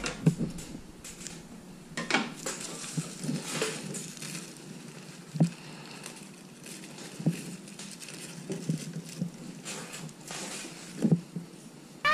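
Handling sounds of a plastic-bag kite on a glass tabletop: plastic rustling under scattered light clicks and knocks, the strongest about two, five and eleven seconds in.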